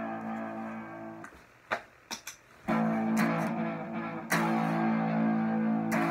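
Electric guitar: an A barre chord rings and is muted about a second in. A few short string clicks follow, then chords are strummed twice more and left ringing.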